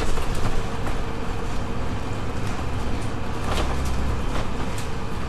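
A double-decker bus driving, heard inside from the upper deck: a steady low engine rumble and road noise, with a few short knocks and rattles from the body, one of the clearest about three and a half seconds in.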